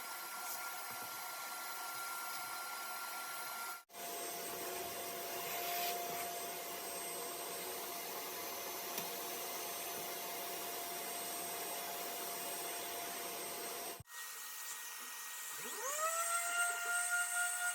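Electric power tool motor running steadily with a thin whine, in three short stretches joined by abrupt cuts. In the last stretch the motor spins up with a quickly rising whine and then holds a steady pitch.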